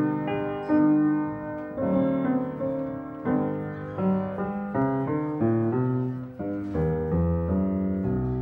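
Solo piano playing a melody over held lower notes, a new note struck every few tenths of a second; the bass moves lower about two-thirds of the way through.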